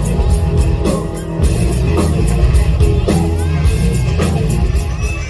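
Rock music with electric guitar and drum kit playing over the show's sound system.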